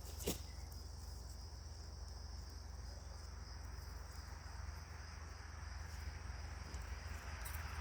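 Steady high-pitched trilling of insects, with one sharp click about a third of a second in and a low background rumble.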